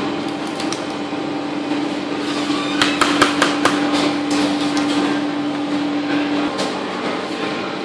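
Metal portion scoop clicking and knocking against stainless steel pans and a perforated tray as mashed potato is dished out, with a cluster of sharp clicks about three seconds in. Under it is a steady kitchen hum that stops about six and a half seconds in.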